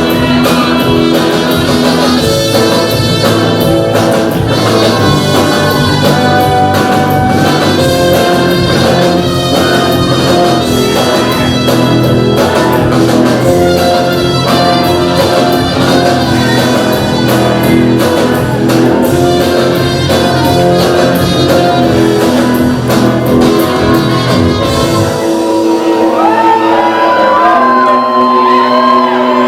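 Loud music with a driving beat and singing. About 25 seconds in, the drums and bass drop out, leaving voices over lighter accompaniment.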